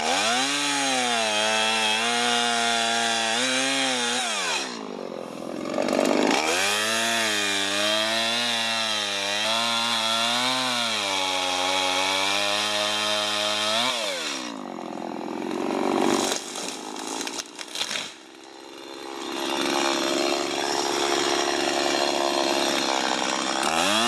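Two-stroke chainsaw revved up and held at high speed in long pulls, dropping back between them and running at a lower steady speed near the end. The saw is cutting to free another chainsaw pinched in the tree.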